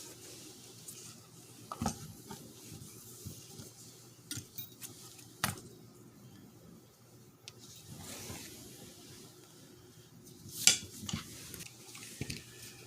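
Small clicks, clinks and rubbing as parts of a car's manual shifter assembly are pried apart and handled with a screwdriver, with a few sharper knocks about two, five and a half and ten and a half seconds in.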